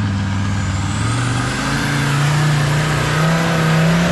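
Mercedes OM617 five-cylinder diesel in a Toyota rock crawler, held at high revs under load as it drives up a rock line. Its pitch edges higher around the middle, with a thin high whine that rises in the first second and then holds.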